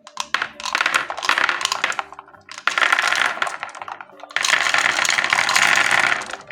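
Three loud bursts of clattering, many small hard pieces rattling together, with quiet background music underneath.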